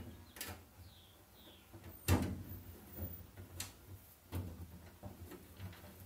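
Pan head screws being started loosely by screwdriver into a steel access panel on a stripped Porsche 911 body shell: scattered small metal clicks and knocks, the loudest about two seconds in.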